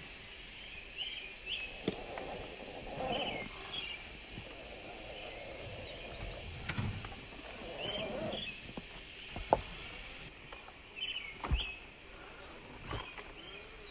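A scale RC rock crawler's motor and drivetrain whirring in stretches as it climbs over rocks, with a few sharp knocks, the loudest about nine and a half seconds in. Over the outdoor background a bird calls repeatedly in short chirps.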